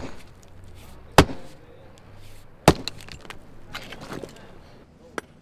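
Hammer striking a basalt stone block, three sharp blows about a second and a half apart, each with a short ring. Fainter clicks of stone follow.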